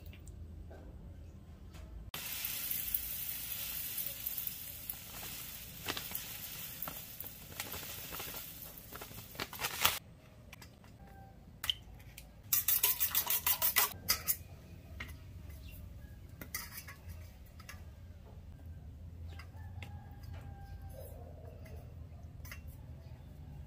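Kitchen cooking sounds: utensils clinking and scraping against dishes, with a loud steady hiss for about eight seconds that stops abruptly. About halfway through there is a second and a half of rapid clatter, then scattered clicks.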